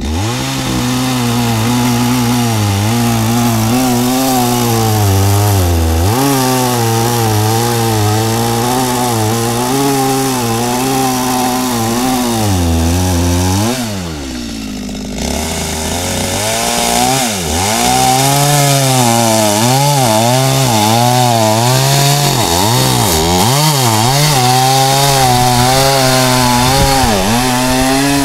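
Two-stroke chainsaw cutting through a thick log, its engine pitch wavering as the chain works in the wood. About halfway it eases off briefly, then revs back up, with quick rises and falls in pitch as it bites into the cut again.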